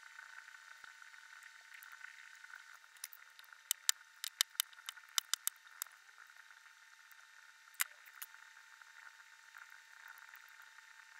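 Small sharp clicks of plastic model-kit parts being handled and fitted together: a quick run of about ten a few seconds in and one more later, over a steady faint hiss.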